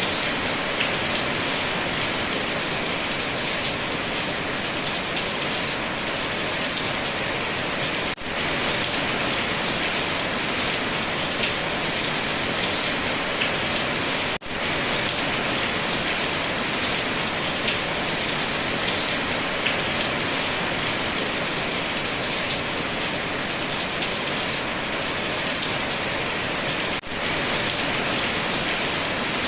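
Steady heavy rain: a dense, even hiss of drops on surfaces, with three very brief dips in level.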